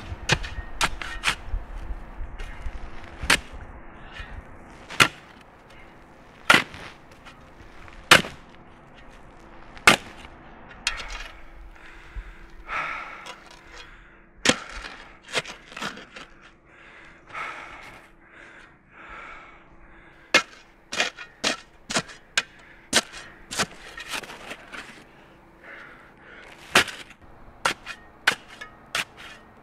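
A series of sharp cracks and snaps, each with a short ringing tail. They come about every second and a half at first and in quicker clusters near the end.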